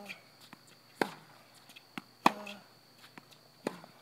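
Tennis ball being struck by rackets and bouncing on a hard court during a rally: sharp pops about a second apart, the loudest a little over two seconds in, some with a short ring.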